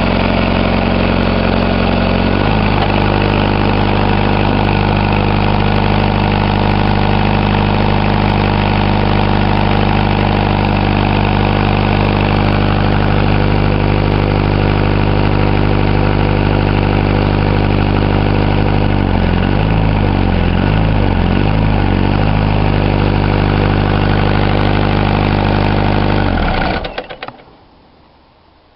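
Peugeot four-cylinder diesel engine driving a Broomwade air compressor, running steadily. Its speed shifts about two seconds in and wavers up and down for a few seconds later on, then the engine stops near the end.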